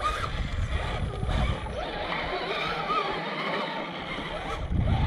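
Electric motor and gear whine of a 1/10-scale RC crawler truck, wavering up and down in pitch as the throttle is worked.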